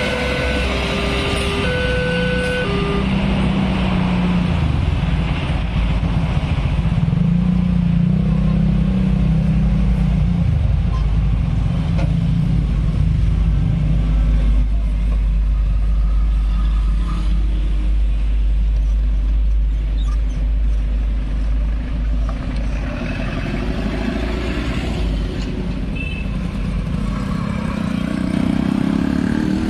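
Railway crossing alarm sounding two alternating electronic tones for the first few seconds while the last train cars pass. Then a low engine rumble from motorcycles and road traffic moving over the crossing, with one motorcycle accelerating close by near the end, its pitch rising.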